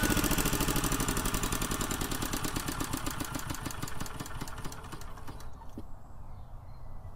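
Small four-stroke stationary engine of a BSA 300 watt military generator set running with a rapid, even firing beat. It grows steadily fainter and dies away near the end.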